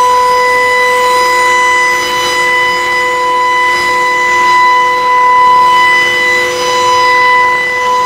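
Spindle of a Lee Hyun multi wood machine, a slab-flattening router, whining steadily at a high, even pitch as its surfacing bit takes a 2 mm roughing pass across a wood slab.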